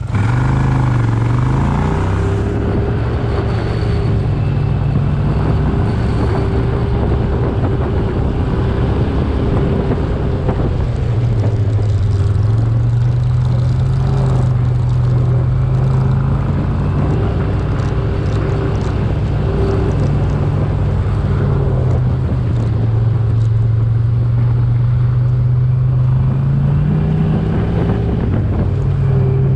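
A motor engine running steadily, its pitch drifting slowly up and down several times.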